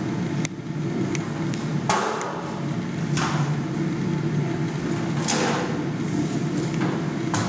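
Metallic clanks and scrapes from a hand-operated Rieke FS600 closing tool crimping a Flexspout pour spout into the steel lid of a 24-gauge tight-head pail as its lever handles are worked. There are about five strokes, the sharpest about two seconds in, over a steady low hum.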